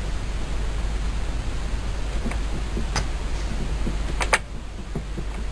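Light clicks from a Scheppach DP40 drill press chuck being gripped and rocked by hand, over a steady low hum; a quick double click about four seconds in. The chuck has sideways play.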